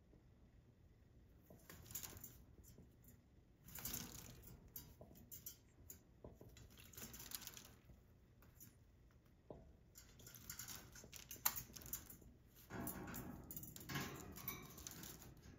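A sun conure splashing in a shallow stainless steel water bowl, flapping its wings in the water. The splashing comes in about five bouts of a second or two each, with quiet pauses between.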